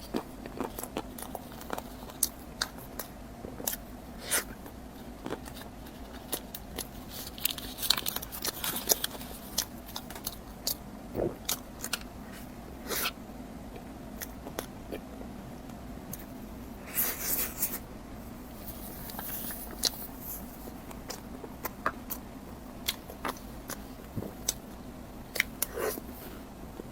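Close-miked eating sounds: irregular bites, crunches and wet mouth clicks of someone chewing food. Underneath is a low steady hum.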